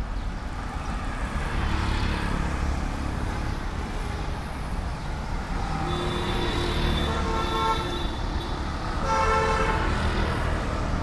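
Street traffic: a steady rumble of passing vehicles, with horns honking twice, a longer one about halfway through and a shorter one near the end.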